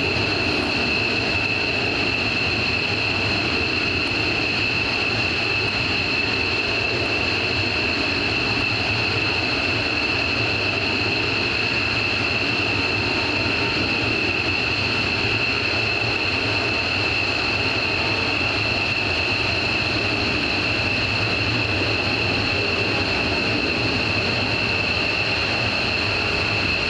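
F-15J Eagle fighters' Pratt & Whitney F100 turbofan engines running at taxi idle: a steady, piercing high-pitched whine made of two held tones over a continuous jet rumble.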